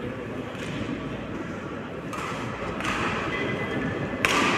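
Indoor sports-hall ambience: a steady murmur of the hall, broken by a few sudden noises, the loudest a sharp knock near the end.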